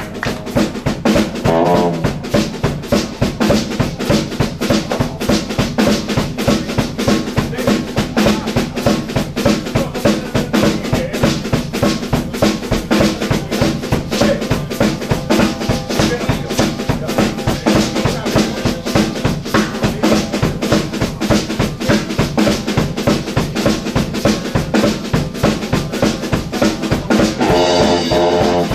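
Live garage-swing band playing an instrumental passage, with the drum kit driving a fast, steady beat over upright bass and electric guitar. A saxophone comes in near the end.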